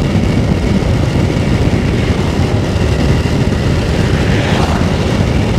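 Steady rush of wind and engine noise from a moving motorbike, the wind buffeting the camera's microphone.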